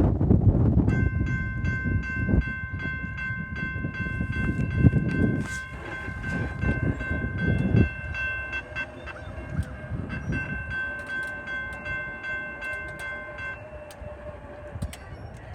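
Locomotive air horn sounding two long blasts, the first about eight seconds, the second about three after a short break, over a low train rumble that fades.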